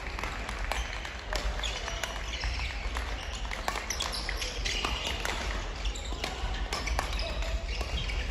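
Badminton play in a large hall: irregular sharp racket-on-shuttlecock hits and brief shoe squeaks on the court floor, over a murmur of voices.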